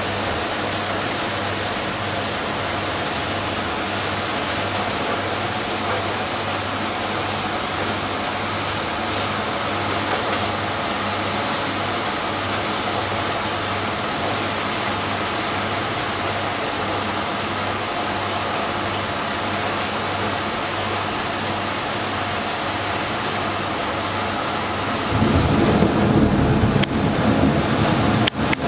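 Heavy rain pouring steadily, with a louder low rumble in the last few seconds.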